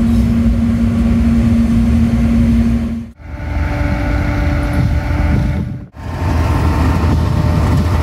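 Diesel-electric locomotive running: first a steady engine hum with rumble, then, after two abrupt cuts, a Pakistan Railways GEU-40 locomotive with a steady engine drone, then low wheel-and-engine rumble as it runs past at speed.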